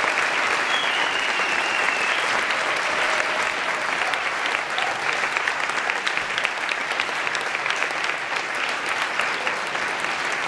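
A large audience applauding: many hands clapping in a dense, steady stream.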